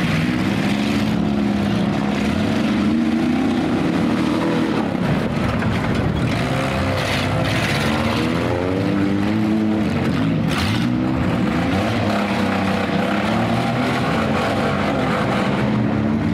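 Engines of several demolition derby cars and vans running and revving together, their pitches rising and falling as they accelerate and ram one another, with one sharp impact about ten seconds in.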